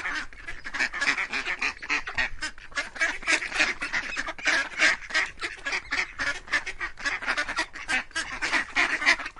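A flock of domestic ducks quacking, with many short calls overlapping at several a second, steady throughout.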